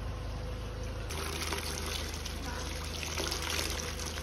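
Thin stream of spring water falling from a spout into a stone basin, trickling and splashing steadily. From about a second in it is heard close up, brighter and more splashy.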